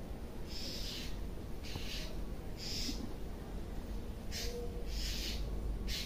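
Hair being gripped, pulled and rubbed against the scalp in a hair-cracking head massage: five short rustling swishes, each under half a second.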